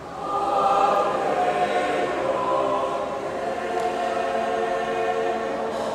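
Mixed church choir singing, coming in loudly about a quarter second in and holding full sustained chords.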